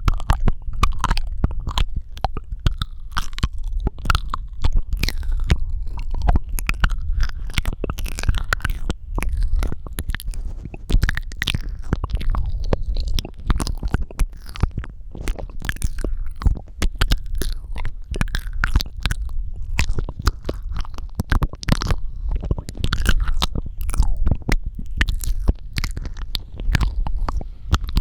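Strong, close-miked ASMR mouth sounds: a rapid, continuous stream of wet clicks, smacks and pops, with a deep low rumble underneath.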